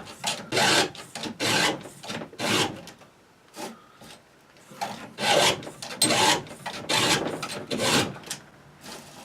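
Hand file rasping across the steel cutter teeth of a chainsaw chain during sharpening, in repeated short strokes about every half second, with a brief pause a little before the middle.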